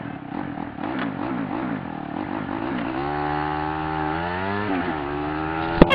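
Suzuki Raider 150 motorcycle engine heard from the rider's helmet, its pitch swinging up and down as the bike slows. From about halfway it settles into a steady pitch as the bike comes to a stop. A sharp click sounds right at the end.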